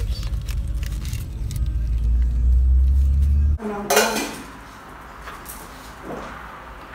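Steady low road rumble inside a moving car's cabin, cutting off suddenly about halfway through. Then a stainless steel pot and its lid clank and ring once as they are handled, followed by a few small clinks.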